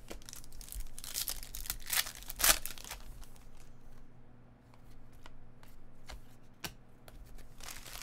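Foil wrapper of a basketball trading-card pack being torn open and crinkled, loudest about two and a half seconds in, followed by softer rustling and a few sharp flicks as the cards are handled.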